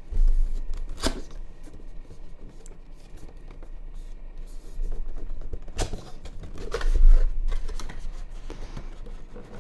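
A cardboard box being handled and opened: rustling and scraping, with scattered clicks and low bumps, the heaviest just after the start and about seven seconds in.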